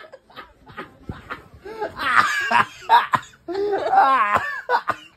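A fit of laughter with coughing: short rapid bursts at first, then longer, high-pitched laughing that wavers up and down.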